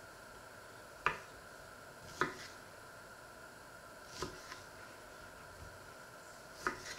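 A small kitchen knife slicing halved plums on a wooden cutting board. The blade knocks sharply on the board four times at uneven intervals.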